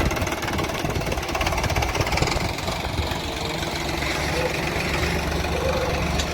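Diesel engine of heavy earthmoving or farm machinery running steadily, with a fast, even chugging.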